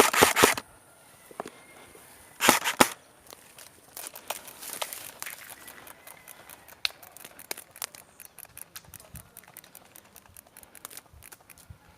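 Airsoft rifle firing a fast full-auto burst that stops just under a second in, then a second short burst about two and a half seconds in. After that, faint scattered crackling and rustling clicks.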